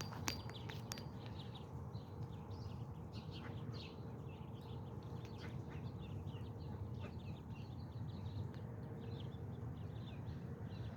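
Ducklings peeping: many short, high chirps scattered throughout, over a steady low rumble, with a couple of sharp clicks just after the start.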